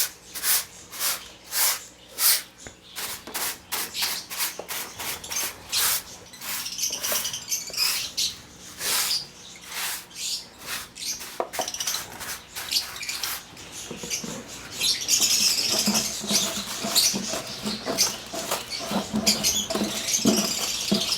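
Many small cage birds chattering, a stream of short, sharp chirps that thickens into dense, continuous chatter about two-thirds of the way in.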